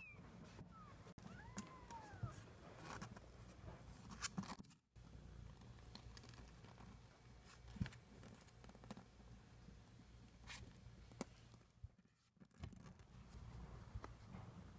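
Faint rustling and scattered small clicks, with one short, soft cat mew that rises and falls about two seconds in.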